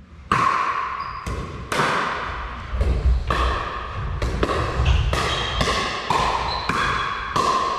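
Pickleball rally: a hard plastic perforated ball struck back and forth by paddles and bouncing on a wooden floor, a quick run of sharp pops about every half second, each ringing briefly and echoing in the hall.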